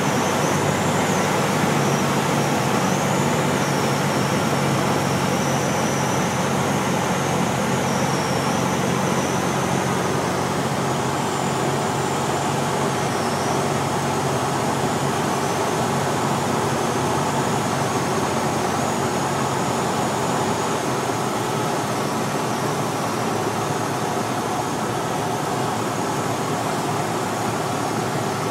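Cessna 172's piston engine and propeller droning steadily, heard inside the cockpit. A faint wavering high whine runs above it, and the low engine note weakens about twenty seconds in.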